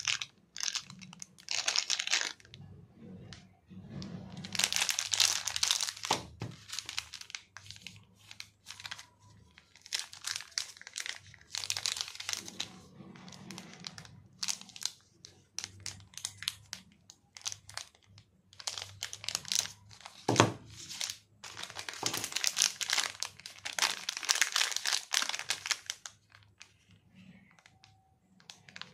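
Cadbury chocolate bar wrappers crinkling and crackling as they are handled and turned over by hand, in several bouts with short pauses between.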